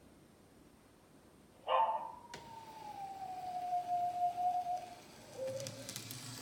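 A sound effect played back from a model diorama: after near silence, one long wailing call starts suddenly and slides slowly down in pitch, followed by a short lower note.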